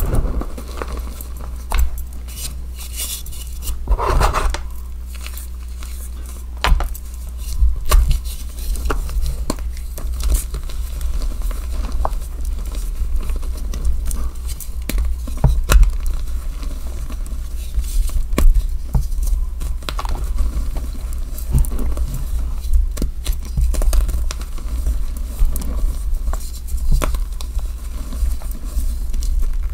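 Blocks of deeply dyed gym chalk being crushed and crumbled by hand, a steady run of irregular crisp crackles and crunches as the chunks snap apart and the powder shifts.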